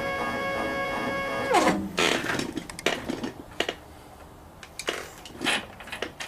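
CNC-converted Grizzly G0705 mill's axis motors whining as they jog, dropping sharply in pitch and stopping about a second and a half in. After that, scattered clicks and knocks.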